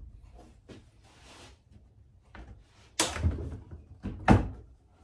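Wooden blocks of an end-grain cutting-board layout clicking and sliding as they are shifted in bar clamps, then two loud wooden thunks about a second and a half apart as the clamped assembly is knocked against the workbench.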